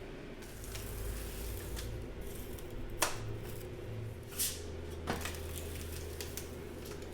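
Handling noise at a metalworking bench: a few sharp clicks, about three seconds in and again near five seconds, with a softer rustle between, over a low steady hum.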